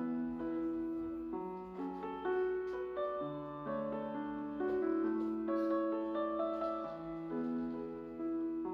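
Background instrumental music played on a keyboard, with held notes moving from one to the next about once a second.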